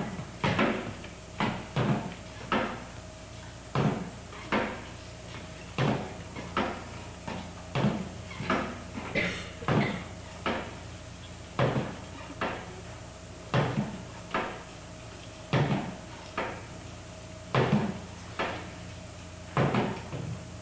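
Folding chairs knocking against the stage floor in a steady rhythm, mostly pairs of knocks about two seconds apart, over a steady low hum.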